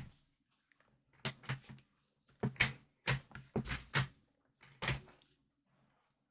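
A 10 mm lever weightlifting belt being handled, its metal lever buckle clacking: about ten sharp knocks and clacks in quick succession, starting about a second in.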